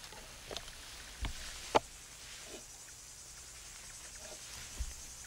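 A few sharp knocks and clinks as rifle magazines and cartridges are handled in a wooden box, the loudest about a second and three quarters in, over a steady high chirring of insects.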